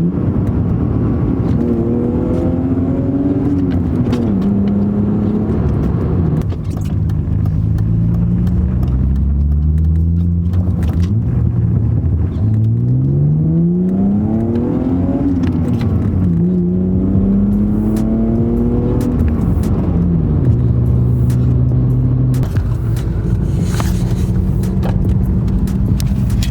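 BMW E36 320i's M52B20 straight-six pulling through the gears of its manual gearbox, its note rising steadily and dropping back at each upshift, several times over, then holding steady near the end.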